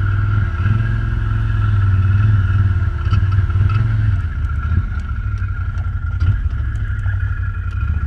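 ATV engine running at low speed off-road, with a steady high whine above it and scattered sharp clicks and knocks from about three seconds in.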